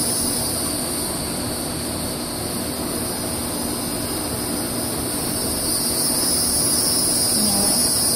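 Steady evening insect chorus, a continuous high buzz, over a steady low background rumble.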